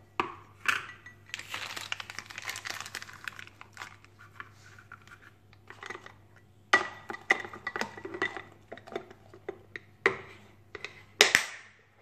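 A glass food-storage container and its plastic snap-on lid being handled on a granite countertop: clinks and knocks of glass on stone and clicks of the lid, with crinkling of a plastic zip-lock bag. The knocks come irregularly, in clusters, with the sharpest one near the end.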